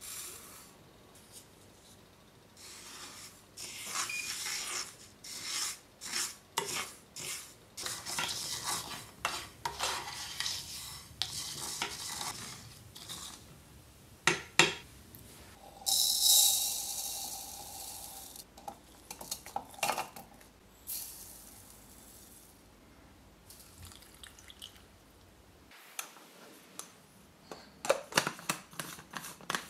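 Sesame seeds being stirred and scraped around a nonstick frying pan with a plastic spoon as they toast, in many short strokes with the dry seeds rattling against the pan. Near the end come sharp plastic clicks of a small blender cup being handled and its lid fitted.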